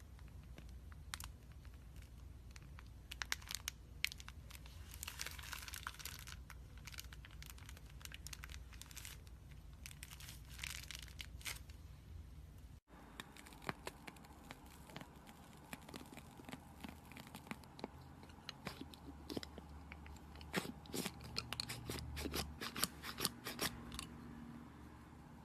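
Hands squeezing and stretching slime: rapid sticky clicks, pops and crackles in clusters, with a brief gap about halfway and busier crackling after it.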